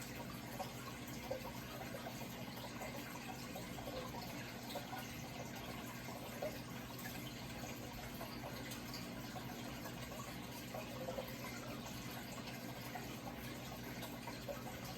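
Steady running water, trickling and bubbling evenly, over a low steady hum.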